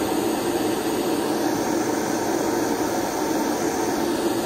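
Small handheld gas torch burning steadily with a rushing hiss, heating a large crimped battery cable lug so the solder flows into it.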